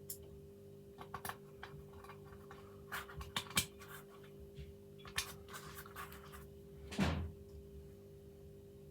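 Sash lock being reassembled: small metal clicks and taps as its parts are handled and fitted, with one louder scraping clunk near the end, over a steady low hum.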